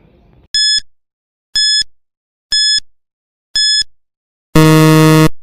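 Quiz countdown-timer sound effect: four short high beeps a second apart, then a longer, lower buzz that ends the countdown.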